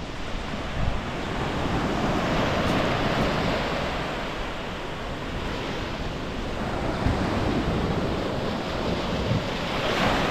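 Ocean surf washing onto the beach in two slow swells with an easing between them, and wind buffeting the microphone.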